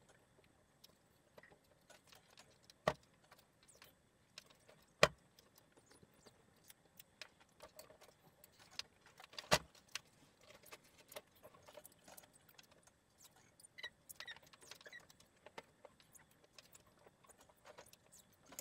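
Quiet handling noises: a few sharp clicks and light clatter among soft rustling, as laundry is hung up to dry.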